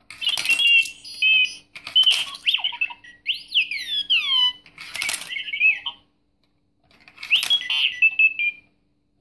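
R2-D2 toy money box playing its electronic droid sounds: several bursts of beeping chirps and warbles. About three to four seconds in comes a run of falling whistles.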